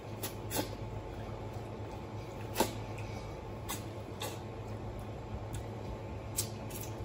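Mouth sounds of a person eating soy-braised pork bones by hand, smacking and sucking the meat off the bone: irregular sharp smacks, the loudest about two and a half seconds in, over a steady low hum.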